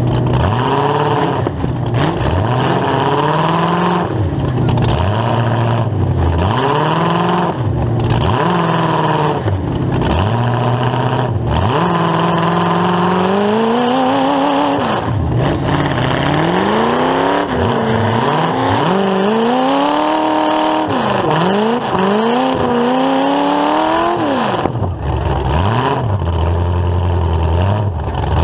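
A full-size demolition derby car's engine is revved up and let fall again and again. The bursts come every couple of seconds at first, then turn into longer pulls that rise and fall more slowly.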